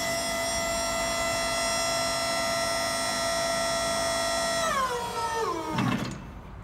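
Hydraulic pump motor of a Crown RC5500 electric forklift running to raise the forks during lift calibration: a steady electric whine with many overtones. About five seconds in it winds down in pitch, and it stops with a short low thud about six seconds in.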